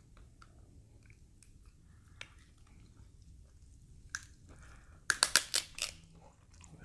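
Close-up quiet chewing with small scattered mouth clicks, then about five seconds in a quick run of about six loud, sharp cracks as a grilled king crab leg shell is broken open.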